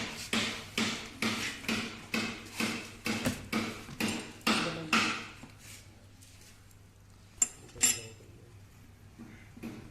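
Hammer blows on metal gearbox parts, about three a second and evenly spaced, stopping about five seconds in. Two sharp metallic clicks follow near the end.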